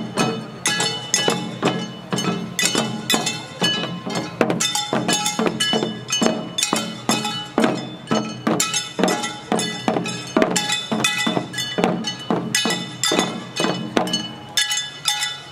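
Jangara nenbutsu dance accompaniment: hand-held bronze gongs (kane) struck in a steady, brisk rhythm together with taiko drums, each gong stroke ringing on.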